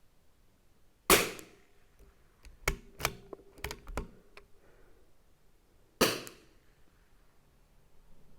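Two shots from a CZ 457 AT-ONE .22 LR bolt-action rifle, about five seconds apart. Between them comes a quick run of clicks as the bolt is worked to reload.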